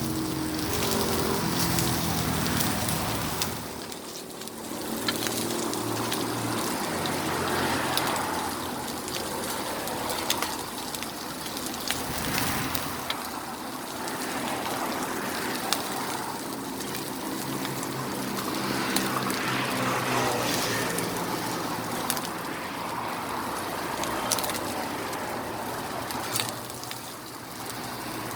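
Pork burger patties sizzling on a hot griddle: a steady frying hiss with scattered sharp crackles, over a low steady hum.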